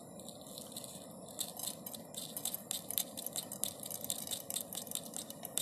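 Mustard seeds crackling and popping in hot sunflower oil in a small cook pot: a scatter of sharp little clicks that starts about a second in and grows busier.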